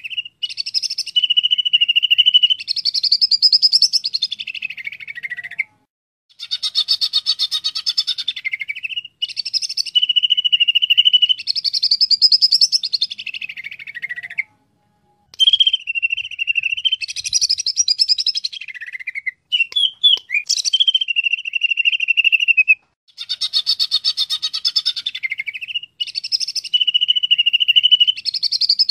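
Cucak ijo (green leafbird) singing. The same song phrase repeats about every eight seconds with short gaps between, each a rapid rattling trill, a held steady whistle and a falling warble. A few sharp clicks come about two-thirds through.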